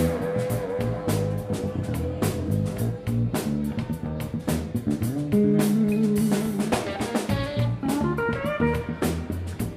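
Live instrumental band playing a funk groove: electric guitar, electric bass and pedal steel guitar over a drum kit with a steady beat.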